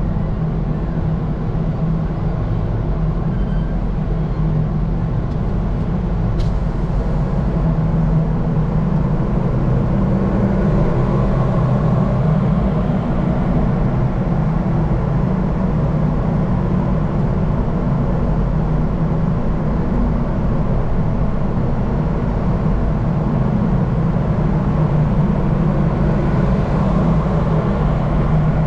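Steady low engine drone of a moving vehicle, an unbroken hum with no change in pitch or level.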